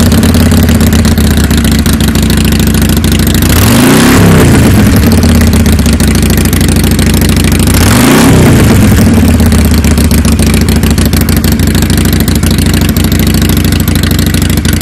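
Harley-Davidson Sportster V-twin exhaust through Rip-Rod slip-on mufflers with mechanical louvered core baffles, idling after a fresh start. It is revved twice, about four seconds apart, each rev rising and falling back to idle.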